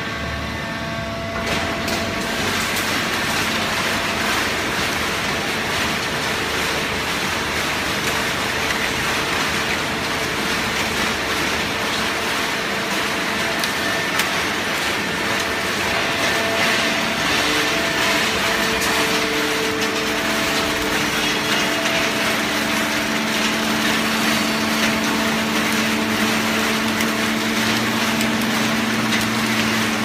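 Fully automatic horizontal hydraulic baling press running: loud, steady machine noise with a hum from its hydraulic drive, growing louder about a second and a half in.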